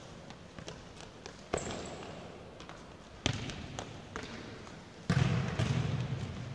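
A futsal ball being kicked on a sports-hall floor: three sharp kicks about one and a half, three and a quarter and five seconds in, the last the loudest, each ringing on in the hall.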